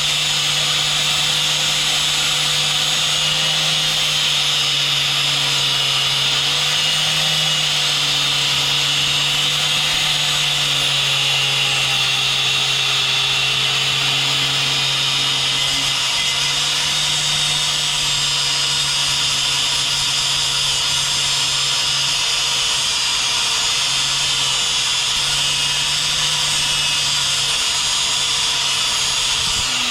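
Grinder with an abrasive wheel cutting through the steel coil spring of a Mini's rear strut, running steadily under load with a slight wavering in its whine.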